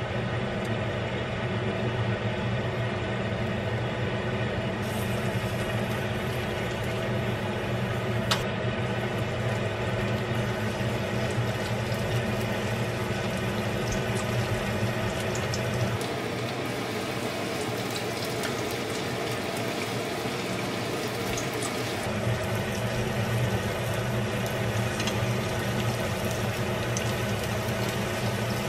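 Hot oil bubbling and sizzling as battered chicken pieces deep-fry in a pot, with fine crackling ticks over a steady low hum.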